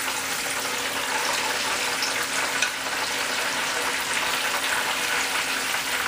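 Pork-rind-breaded chicken cordon bleu frying in hot oil: a steady sizzle with scattered crackles and pops, over a faint steady hum.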